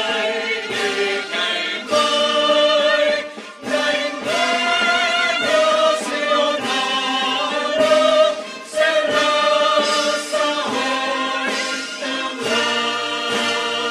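A choir singing a slow, solemn anthem in sustained, held notes with vibrato.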